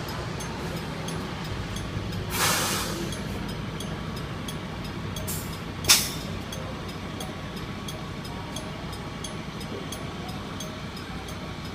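Buses running at low speed with a faint left-turn warning chime repeating; an air-brake hiss a little over two seconds in and a short sharp pop of air near six seconds, the loudest sound.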